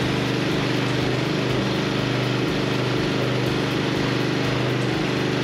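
Single-cylinder Honda GCV170 lawn mower engine running steadily at constant speed, with an even rapid firing pulse.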